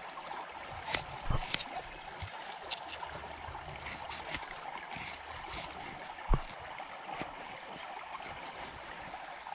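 Knife cutting onion and tomato against a stone: irregular sharp taps, the loudest about six seconds in, over the steady rush of river water flowing over rocks.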